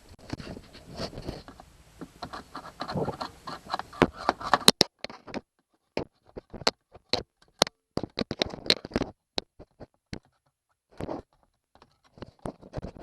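Hands working at a portable radio's battery compartment: scratching and scraping for the first few seconds, then a run of separate sharp clicks and knocks.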